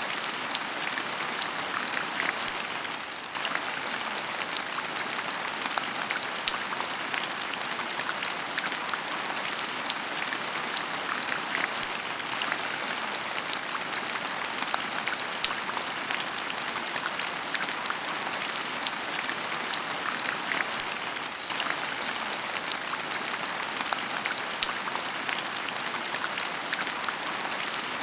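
Heavy rain falling steadily: a dense even hiss with many close individual drops ticking through it.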